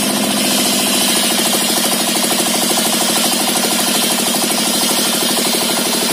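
Single-cylinder dompeng diesel engine running steadily with a rapid, even beat, driving a homemade table circular sawmill.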